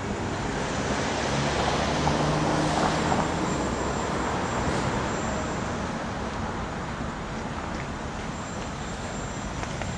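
Steady street and engine noise, with an engine hum that swells about two seconds in and then eases off.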